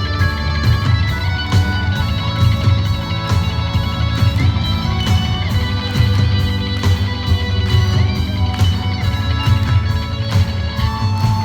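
Live band playing an instrumental passage: strummed electric guitar over heavy bass and a steady drum beat.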